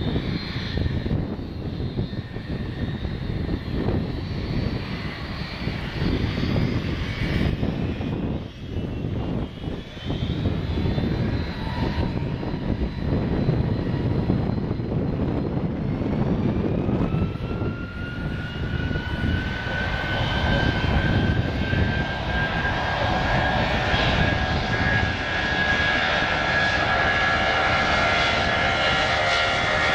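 Boeing 757 twin jet engines running at the start of the takeoff run. A low rumble turns, about halfway through, into a rising whine that grows louder as the engines spool up to takeoff thrust.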